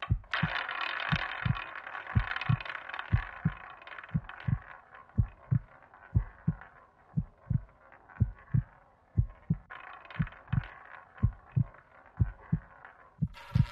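A cartoon heartbeat sound effect, low thumps in pairs about once a second, over the rattling whir of a roulette ball spinning round the wheel. The whir is loudest at the start, fades, and rises again about ten seconds in.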